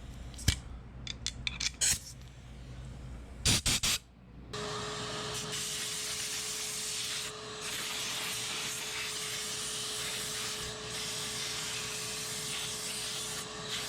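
A few clicks and knocks, then about four seconds in, a compressed-air blow gun starts hissing steadily as it blows dust off a refrigerator's dirty condenser coils, with brief dips where the trigger eases. A shop vac runs alongside to catch the dust, with a steady hum note under the hiss.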